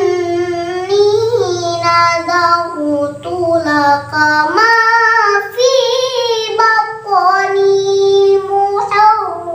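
A young girl reciting the Quran in melodic tilawah style, her voice winding up and down through long ornamented phrases with brief breaths between them and a long held note near the end.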